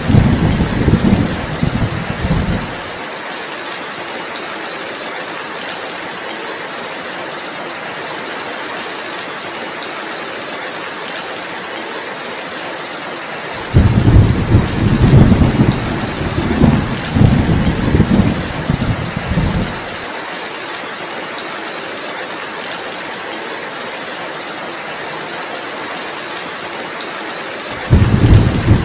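Heavy, steady rainfall with deep rolling thunder rumbles. The thunder rolls through the first few seconds, again for about six seconds in the middle, and returns near the end.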